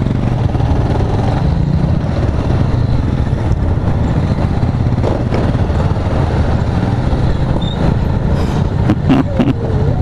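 Motorcycle engine running steadily at low speed, heard from the riding bike itself along with road noise.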